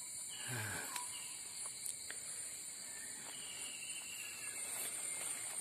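Steady high-pitched drone of insects in the undergrowth, with a few faint short chirps and scattered light clicks and rustles of fern fronds being handled.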